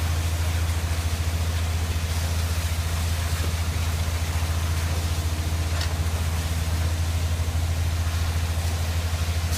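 An engine running steadily at idle, with a low, even, fast throb.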